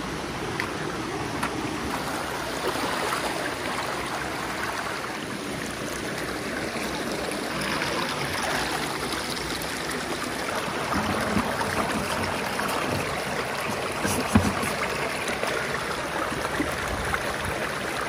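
Mountain stream water rushing and splashing over rocks, a steady wash of sound. A few light knocks about fourteen seconds in.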